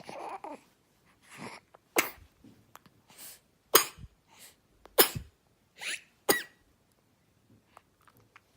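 Snoring in sleep: a softer breath, then a sharp, loud snore, repeated four times about a second and a half apart, fading to faint breathing near the end.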